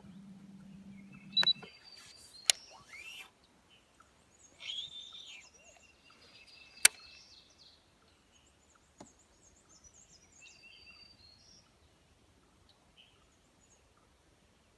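Birds chirping in short, scattered calls, with a few sharp clicks; the loudest is a single click about seven seconds in.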